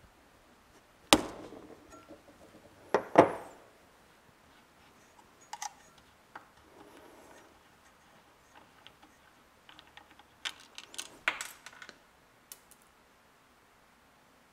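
Metal clanks and clicks of a wrench and small carburetor parts being handled at a bench vise: one sharp clank about a second in, a louder double clank about three seconds in, then scattered light ticks and a cluster of small clinks near the end.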